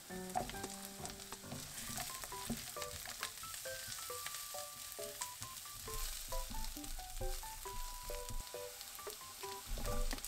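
Food sizzling as it fries in a pan, with scattered clicks of a utensil stirring, over light background music with a melody of single notes.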